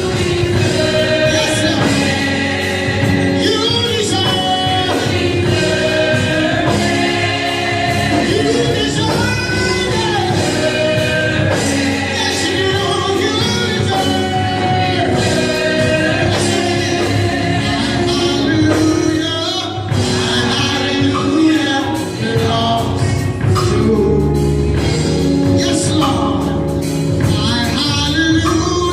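Gospel music with a choir singing over the instruments.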